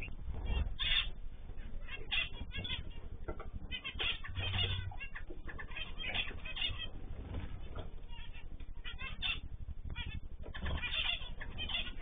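Mixed aviary birds (cockatiels, canaries and zebra finches) chirping and calling, many short chirps in quick clusters, over a low steady rumble.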